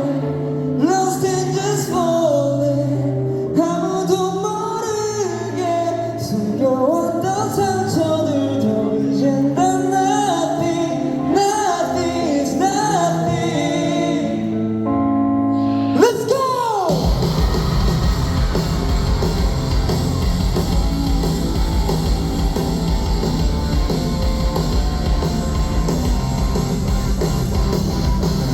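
A live rock band performance with a singer carrying the melody over held chords. About two-thirds of the way in, a falling sweep leads into the full band with heavy bass and drums, which then plays on to the end.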